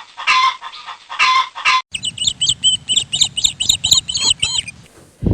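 Bird calls: a few short clucking calls, then after a cut a rapid run of high chirps, about four a second, over a low rumble.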